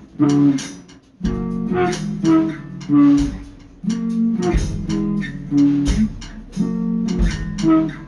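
Background music: a guitar-led track with strummed chords and bass over a steady beat.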